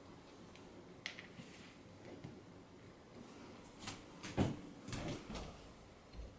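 A few scattered light knocks and clicks, the loudest a dull thump about four and a half seconds in.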